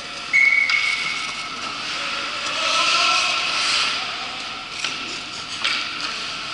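Ice hockey rink: a referee's whistle blown once, a steady high tone about a second long just after the start. Then comes a hiss of skates scraping the ice, with distant voices and a couple of sharp knocks.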